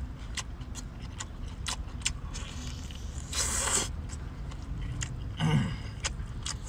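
A man chewing squid with his mouth open, many sharp wet smacks and clicks from the mouth and fingers, with two louder noisy mouth sounds about three and a half and five and a half seconds in. A steady low rumble runs underneath.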